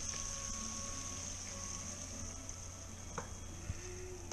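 Tomato sauce simmering faintly in a pan on low heat, under a steady hum and hiss, with a couple of light taps of a wooden spoon about three seconds in.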